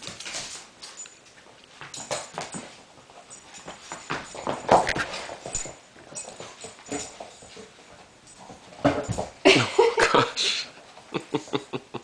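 Small dog whining and yipping in short, irregular bursts while play-wrestling with a cat; the loudest bursts come about nine to ten and a half seconds in, followed by a run of quick light taps.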